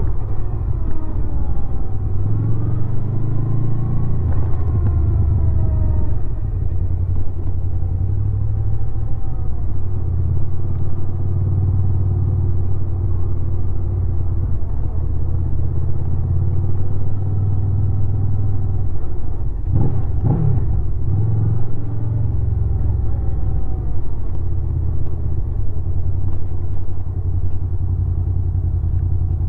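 2016 Honda VFR800's V4 engine running through its stock exhaust on the move, its pitch climbing and dropping as the rider works through the gears. There is a quick up-and-down swing in revs about twenty seconds in.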